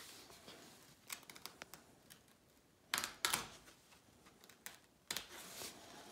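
Bare razor blade cutting through taut Dacron polyester fabric in a few short strokes, with faint clicks and fabric rustling; the loudest strokes come about three seconds in.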